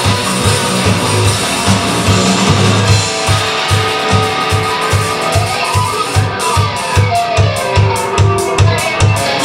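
Live rock band playing: electric guitars over bass and a drum kit keeping a steady driving beat, with quick cymbal strokes joining about six seconds in.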